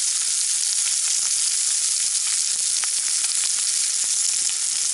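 Salmon and mushrooms frying in butter in a cast-iron skillet on a camp stove: a steady, loud sizzle with scattered small pops.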